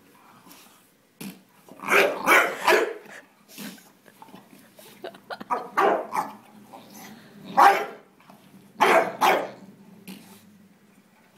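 Bulldog barking in short bursts, a quick run of about three, then more every second or two.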